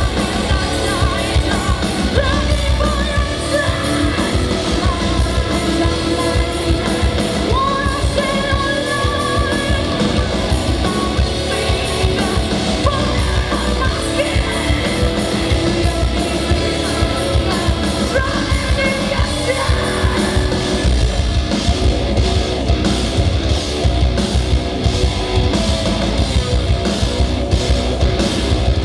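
Live heavy metal band playing: distorted guitars, bass and drums with sung and yelled vocals. About two-thirds of the way through, the drumming turns to fast, dense, even strokes.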